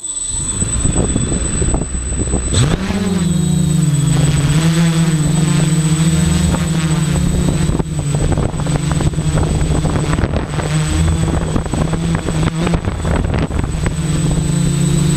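XAircraft Super X quadcopter's electric motors and propellers spinning up suddenly, heard from on board the craft. The pitch rises sharply about two and a half seconds in as it lifts off, then settles into a steady hum in flight, with a thin steady high whine above it.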